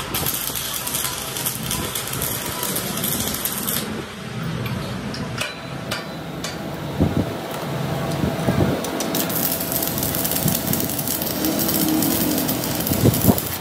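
Stick (arc) welding on a steel truck rear axle housing: the arc crackles and hisses for about four seconds, stops, and starts again about two-thirds of the way in. A few sharp knocks come in the gap.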